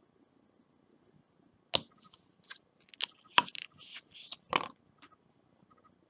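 Nail stamper and metal stamping plate handled while the design is picked up: a handful of sharp clicks and short scraping sounds, the loudest click about halfway through.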